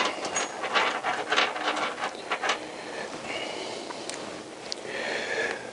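Light clicks and knocks of metal engine parts being handled, several in the first two and a half seconds, as the sump pan is settled onto the crankcase of a Honda CBR1000F engine. Softer rustling follows.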